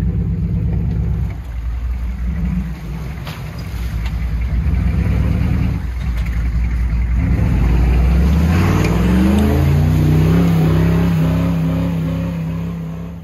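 Chevy K5 Blazer's V8 engine working under heavy throttle, revving up in pitch about seven to nine seconds in and then holding high, with the tires churning through slush and mud.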